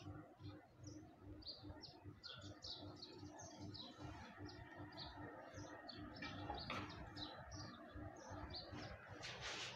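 Faint chirping of small birds: many short, high chirps scattered irregularly, over a low room hum.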